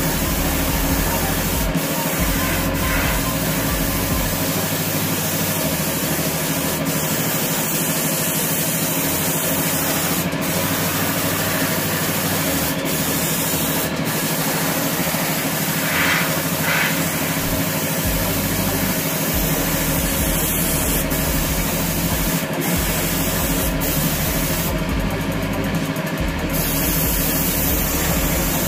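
Steady machine hum under an even hiss, unchanging throughout.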